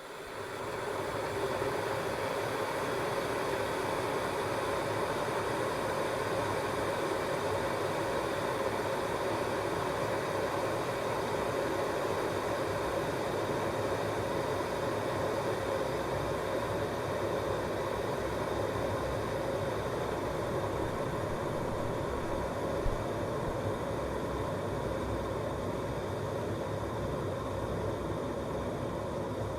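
Digital electric kettle heating water toward the boil: a steady rushing rumble and hiss that comes up within the first second and holds level, with one small tick about 23 seconds in.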